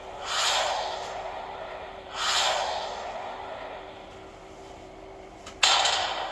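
Viva Video, Inc. logo sound effects: two rushing whooshes, each swelling and fading over about a second, then a sudden hit near the end that dies away as the logo settles.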